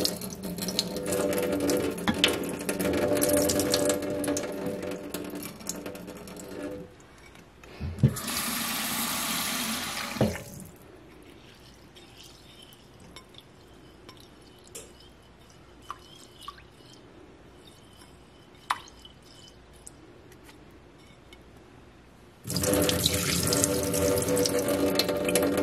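Kitchen tap running into a stainless steel sink while basmati rice is washed in a bowl and the cloudy rinse water poured off. The water runs for about seven seconds, then a brief hiss, then a quieter stretch of faint drips and small clicks as the rice is rubbed by hand, and the tap runs again near the end.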